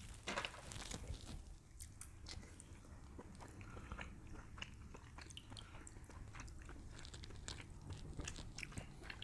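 Close-up eating sounds of grilled king crab legs: faint chewing with many small scattered clicks and crunches.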